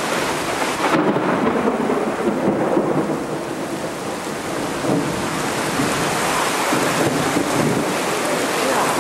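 Heavy rain pouring down in a severe thunderstorm, with thunder rumbling beneath it, steady throughout.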